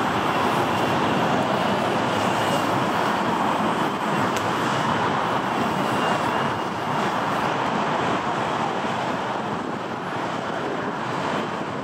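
Jet airliner engines running: a steady, even noise that eases a little near the end.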